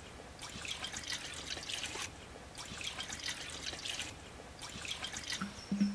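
Water poured from a metal pot into a black wok (kadai), splashing and trickling onto the pan's bottom. It comes in three spells with short breaks between them.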